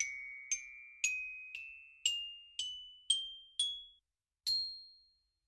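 A short logo jingle on glockenspiel-like mallet percussion: eight single notes struck about twice a second, climbing step by step in pitch, then a brief pause and one higher closing note that rings out.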